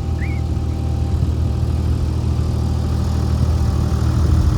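An engine idling, a steady low hum. A single short chirp comes just after the start.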